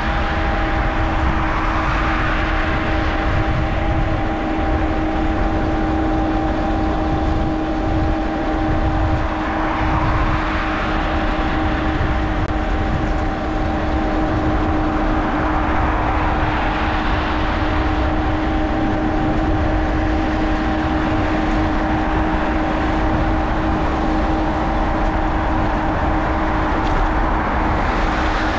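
Wind rumbling on a bicycle-mounted action camera's microphone while riding, under a steady hum. Passing traffic swells and fades about four times.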